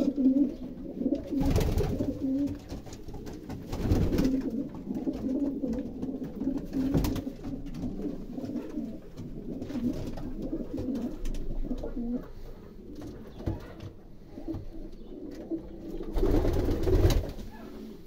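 Domestic pigeons cooing, a low wavering coo that goes on throughout. There are a few louder bursts of rustling noise about a second and a half in, about four seconds in, and the loudest near the end.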